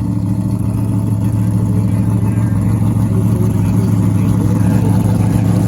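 Big-block Chevrolet V8 in a Malibu running steadily with a deep, even note that grows slightly louder.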